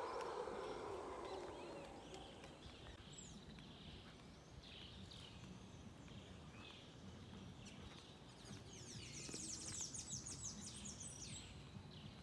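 Faint bird calls: scattered short chirps, then a rapid high trill a few seconds before the end, over a low background hiss. A low rushing noise fades away in the first couple of seconds.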